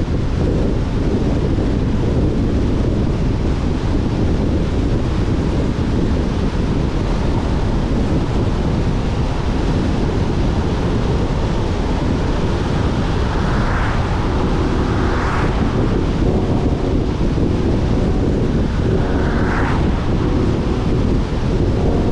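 Steady rush of wind and tyre noise from a car driving along a wet road, with a few brief swells in the second half.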